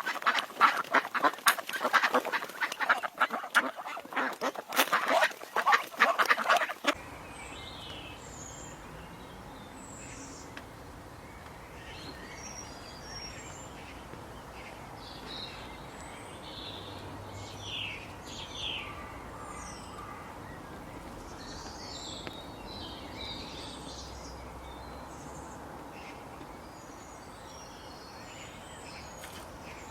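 A flock of waterfowl calling loudly and rapidly, the quacks and honks overlapping, cutting off abruptly about seven seconds in. After that, a steady outdoor hiss with scattered faint, short bird chirps.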